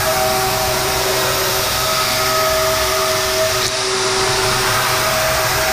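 CNC vertical mill cutting 1018 steel with a 1/2-inch five-flute chipbreaker end mill on an adaptive clearing roughing pass: a steady cutting whine with a few held tones over a hiss, briefly dipping a little before halfway through.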